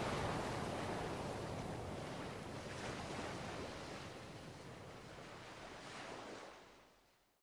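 Ocean surf: a steady wash of breaking waves, slowly growing quieter and fading out to silence near the end.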